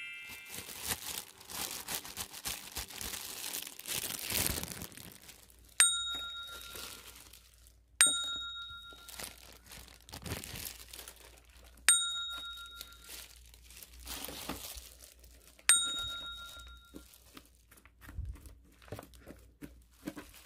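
Thin plastic crinkling and rustling as gloved hands handle plastic food packaging. A bright bell-like ding sounds four times, two to four seconds apart, each ringing down over about a second.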